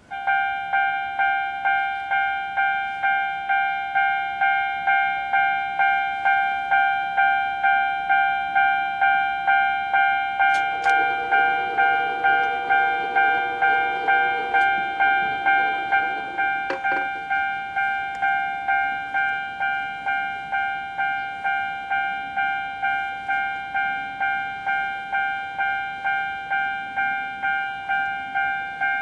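Japanese railway level-crossing warning bell starting suddenly and ringing a repeated electronic ding, a little under two strikes a second. It goes slightly quieter about halfway through. Partway through, a rumbling noise and two sharp clicks sound under it.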